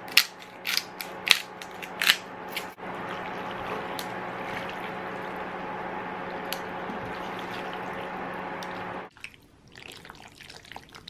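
Portable electric stovetop running with a steady, really loud hum and whir that cuts off suddenly about nine seconds in. In the first few seconds, metal tongs click against an enamelled pot while tossing pasta in a thick cream sauce.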